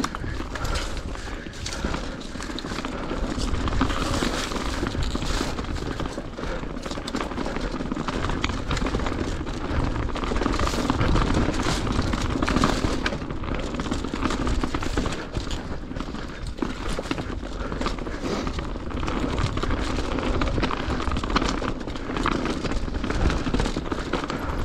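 Mountain bike descending rough singletrack: a constant clatter of tyres over stones and the chain and frame rattling, over a steady low rumble.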